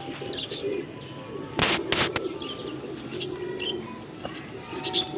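Pigeons cooing, a low burbling coo that comes and goes, with two sharp knocks just under two seconds in.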